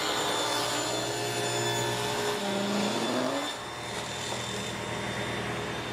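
Table saw ripping a long maple-and-mahogany panel along the fence, the spinning blade and motor running steadily through the cut. A little past halfway a tone rises, then the saw runs on slightly quieter.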